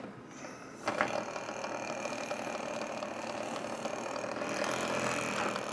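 Small homemade two-transistor pulse motor, a single coil driving a diametrically magnetized magnet rotor from a 9-volt battery, starting up with a sharp onset about a second in and then running with a steady hum that slowly grows louder.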